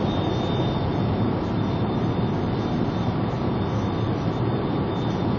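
Skoda Octavia running with a thin, steady high-pitched whistle over the steady rumble of the car.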